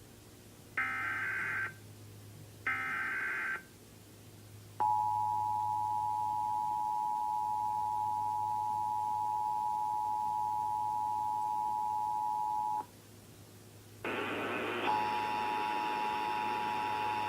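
Emergency Alert System test signal. Two short bursts of SAME header data sound as a raspy digital screech, then the two-tone attention signal (853 and 960 Hz together) holds steady for about eight seconds and cuts off. After a short pause a hiss comes in and the attention tone starts again, sounding buzzier.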